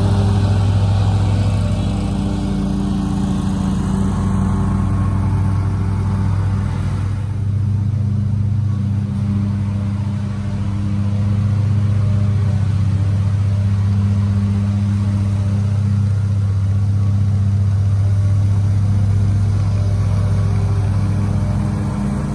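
Lawn mower engine running steadily at a constant speed, with an even hum and no change in pitch.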